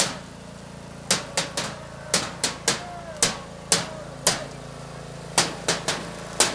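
Sharp knocks struck irregularly, often in quick runs of two to four, about seventeen in all, over a low steady hum.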